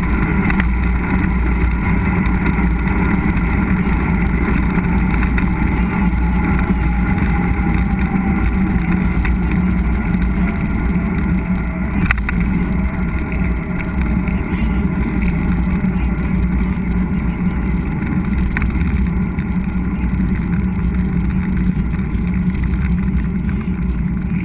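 Steady low rumble of a mountain bike being ridden over a trail, with wind and tyre noise on a bike-mounted action camera, and one sharp knock about halfway through.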